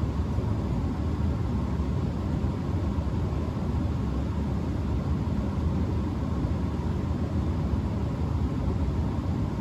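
Bryant Legacy gas furnace running: a steady low rumble with a faint steady hum from the inducer and blower.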